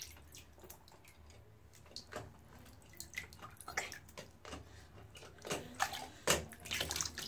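Shallow bathwater in a bathtub splashing and dripping as a pet snake is lifted and moves through it: a scatter of small splashes and drips, busier near the end.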